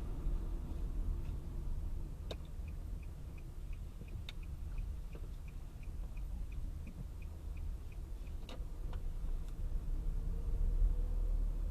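Car turn-signal relay ticking evenly at about two and a half ticks a second for several seconds over a steady low road-and-engine rumble, with a few sharp clicks.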